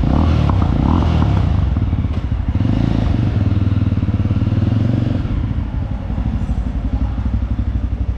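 Jawa 42 motorcycle's single-cylinder engine running with a steady, rapid exhaust beat.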